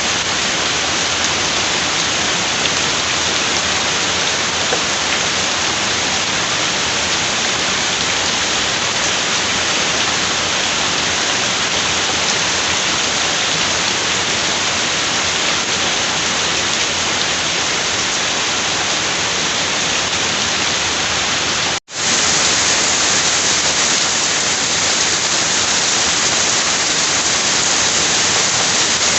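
Heavy rain falling steadily, an even, dense hiss with no thunder. About three quarters of the way through it drops out for an instant, then comes back a little louder.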